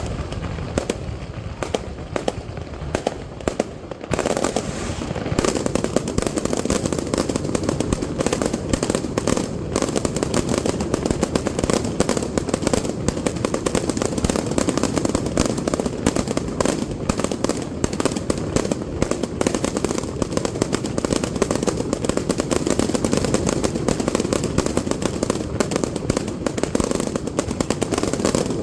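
Aerial fireworks display: separate sharp bangs at first, then, about four seconds in, a dense unbroken barrage of rapid reports that carries on to the end.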